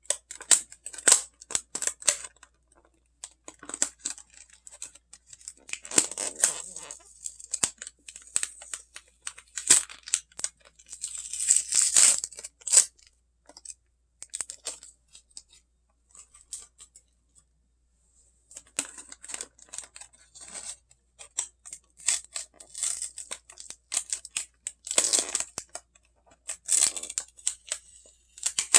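Clear plastic wrap crinkling and tearing as it is worked open by hand around a cheese ball, in irregular crackly bursts with a lull about halfway through.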